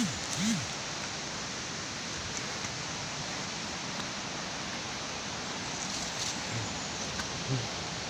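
Steady, even rushing noise of the outdoors, without rhythm or change.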